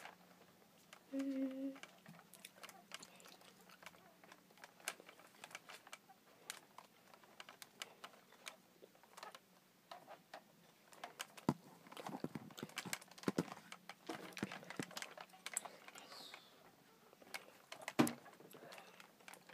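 Faint handling noise: scattered small clicks and taps as a toy dragon is moved about and knocks against things, with a brief low hum about a second in and one sharper click near the end.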